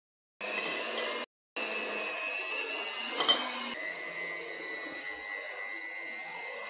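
Electric hand mixer running with a steady whine, its twin beaters churning thick brownie batter in a glass bowl. The sound breaks off briefly just after a second in, a short loud clatter comes a little after three seconds, and the whine steps slightly lower in pitch soon after.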